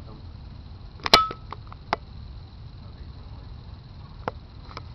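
A few sharp clicks or taps over a low steady rumble, the loudest about a second in and weaker ones after it.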